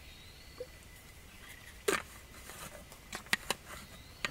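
Plastic water bottle being handled: a sharp click about two seconds in, then a quick run of three clicks with light crinkling near the end.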